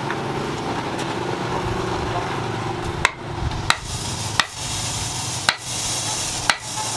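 Steady rushing noise with a low hum, and from about three seconds in, sharp metal knocks roughly once a second, steel being struck in a blacksmith's workshop.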